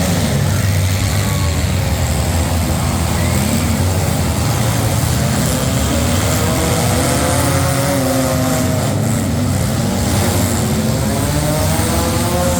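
Demolition derby cars' engines running loudly, with engines revving up and down around the middle and again near the end.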